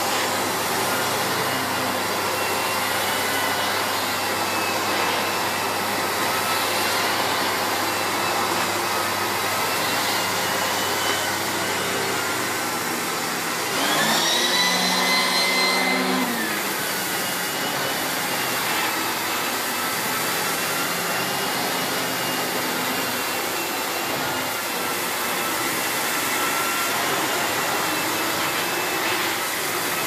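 Miele S8330 2200 W cylinder vacuum cleaner running with the STB-205 turbo brush pushed back and forth over carpet: a steady suction rush with a faint whine that wavers in pitch with the strokes. About halfway through, a higher tone rises and holds for a couple of seconds before dropping back. The owner puts the turbo brush's squealing when pulled backwards and forwards down to something that needs oil or grease.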